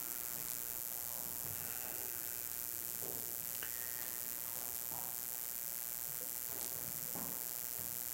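Quiet room tone during a silent pause before prayer: a steady hiss with a few faint, brief room sounds.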